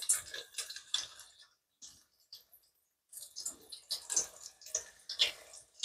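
Corn tortilla tacos frying in hot vegetable oil: irregular crackling and popping of the oil, sparse for a second or so in the middle, then thick again.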